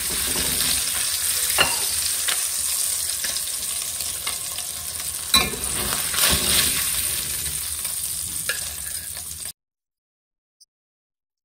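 Salmon fillets sizzling steadily in hot coconut oil in a cast-iron pan, with a few sharp scrapes and clicks of a metal spatula against the pan as the fillets are lifted out. The sizzle cuts off suddenly about nine and a half seconds in.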